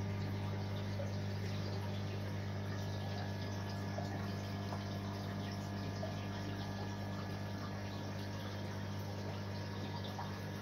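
Aquarium sump system running: a steady low pump hum with water flowing and trickling over it.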